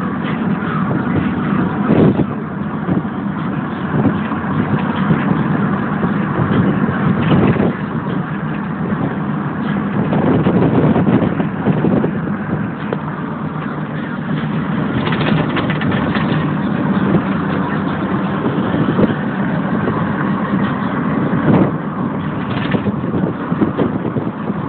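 Car cabin noise while driving: steady road and engine noise with a few short knocks.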